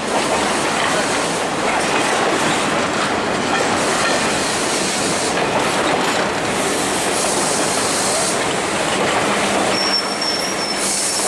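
Ontario Northland's Polar Bear Express, a mixed train of boxcars and passenger coaches, rolling past at close range: a steady, loud rumble of wheels clacking over the rail joints, with a brief high wheel squeal near the end.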